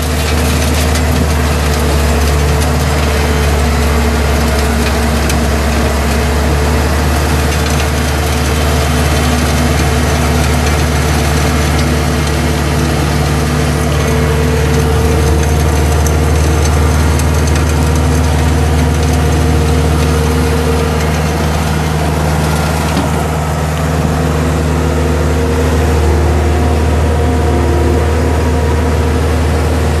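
Case skid steer's diesel engine running steadily under load, driving a Coneotec AP1000 hydraulic mill attachment whose cutting drum grinds up the ground surface.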